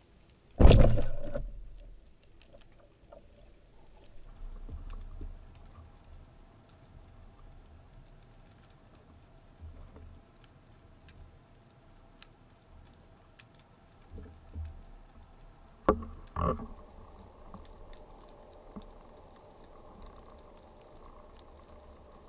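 Band-powered speargun fired underwater: one loud, sharp crack about a second in that dies away over a second or so. Later come two more sharp knocks close together, over a faint steady crackle of fine underwater clicks.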